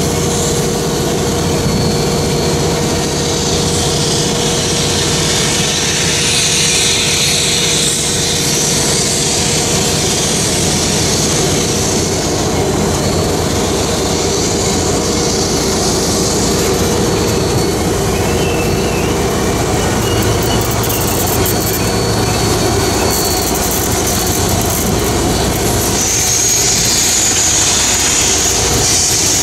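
Steam locomotive #1309, a 2-6-6-2 Mallet, moving slowly with its passenger train: a steady hiss of escaping steam over the rumble of the engine and cars. A steady mid-pitched tone runs through the first half, and the hiss grows stronger near the end.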